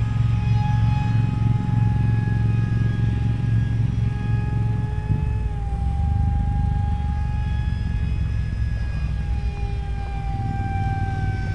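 Brushless electric motor and propeller of a small RC flying wing whining in flight, a steady tone whose pitch drifts slowly down and up as the plane passes, over a low rumble.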